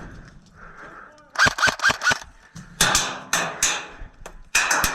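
A quick run of sharp airsoft gun shots about a second and a half in, followed by several loud rushing noises.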